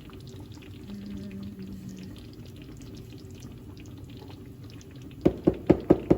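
A faint steady background, then near the end a quick run of sharp knocks, about five a second, in a kitchen during cooking.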